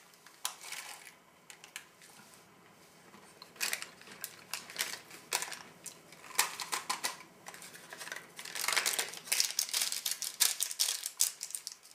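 A person chewing dry, crunchy crumbs of an oatmeal biscuit block close to the microphone: irregular crisp crunches in clusters, busiest near the end.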